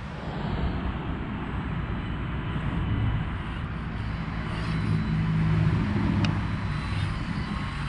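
A low, steady engine drone that swells to its loudest about two thirds of the way through and then eases off, with a faint click near the same point.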